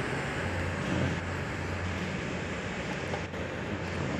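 Auckland suburban diesel multiple-unit train running steadily with a low engine hum as it moves away along the track.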